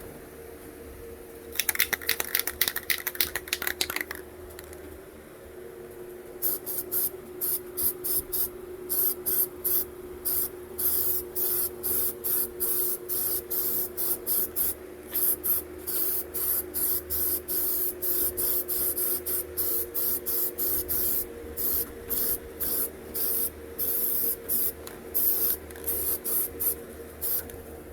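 Primer being sprayed onto car body panels in many short hissing bursts, about one to two a second, after a longer burst near the start, over a steady hum.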